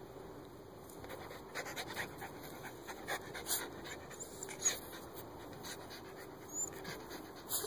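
Miniature schnauzer panting with its nose in an animal burrow, with a few short scratches as it digs at the dirt.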